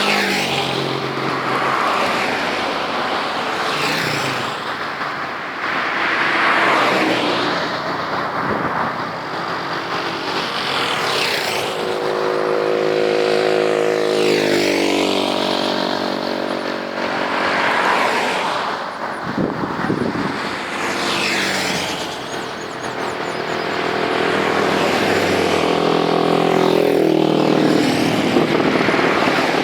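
Road traffic: cars and other motor vehicles passing one after another, each a tyre-and-engine whoosh that swells and fades, with the engine tone dropping in pitch as it goes by.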